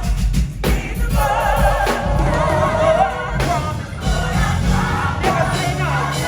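Gospel choir singing with live band accompaniment: many voices holding wavering, sustained lines over a strong bass.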